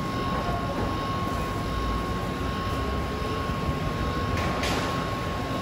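Steady background din of a busy market food court, with a constant high-pitched hum running through it and a short hiss about four and a half seconds in.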